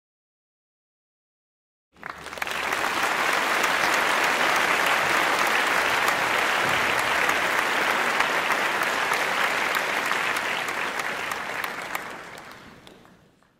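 Audience applauding, starting about two seconds in, holding steady, then fading out near the end.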